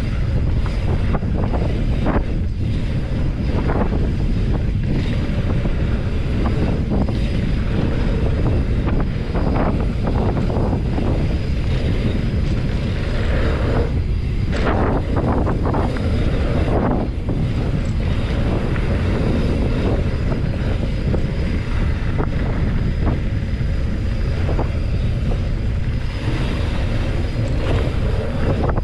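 Wind buffeting the microphone with steady tyre roar as a Trek Roscoe 9 mountain bike rolls fast down a dirt flow trail, with short rattles and knocks as it runs over bumps.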